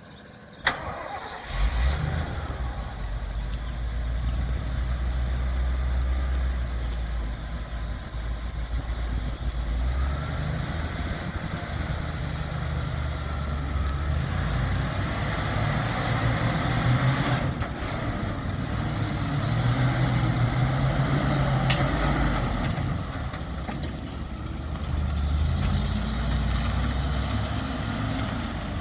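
A 1991 Ford F800 fire truck's 7.0-litre fuel-injected gasoline V8 is started after a sharp click, catching about a second and a half in. It then runs loudly, its speed rising and falling as the truck drives off.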